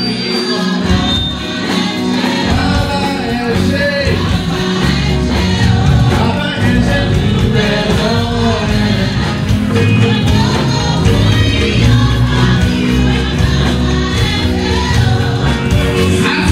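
Gospel choir singing through microphones over instrumental accompaniment, with a man leading on a handheld microphone.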